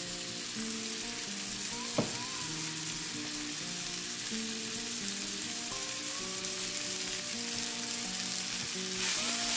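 Onions with ginger and garlic paste sizzling as they fry in a pan, with soft melodic background music over it. A single sharp click comes about two seconds in, and the sizzle grows louder near the end.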